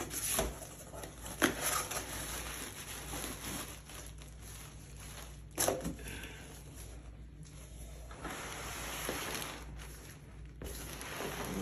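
Cardboard shipping box being torn and pried open by hand: flaps scraping and rustling, with two sharp knocks, the louder about a second and a half in.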